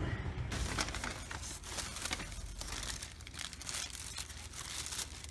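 Paper burger wrapper crinkling as it is unfolded by hand: a dense run of small crackles and rustles.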